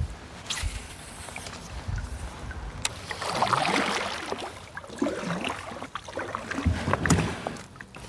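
Kayak on a river: scattered knocks and clicks from the boat and gear, with louder water and handling noise a few seconds in.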